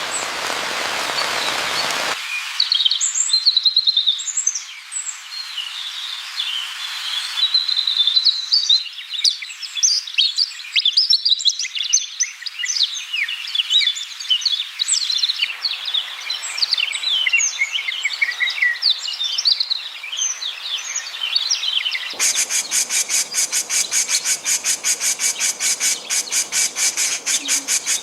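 Rain hiss for the first two seconds, then many small birds chirping in quick, short, high notes. For the last six seconds a fast, evenly repeating pulsing trill takes over.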